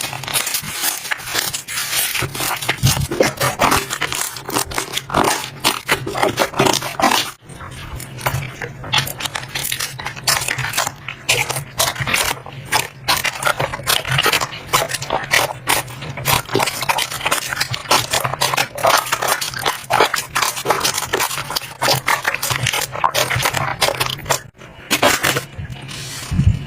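Slime being squeezed and worked by hand, giving a rapid, irregular stream of crackling pops and clicks with scraping, broken by a short pause about seven seconds in.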